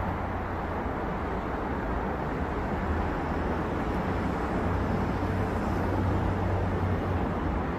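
Continuous city road traffic: a steady wash of tyre and engine noise over a low rumble, a little louder in the middle seconds.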